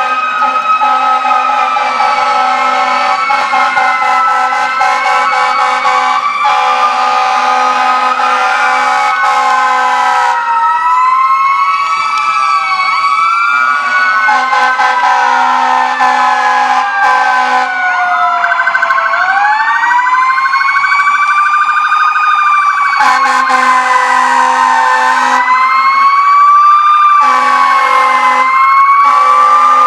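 Sirens of fire trucks (Canton Engine 4 and Ladder 2) wailing loudly, several at once, their pitches rising and falling and crossing one another. Underneath runs a steady horn tone that drops out and returns several times.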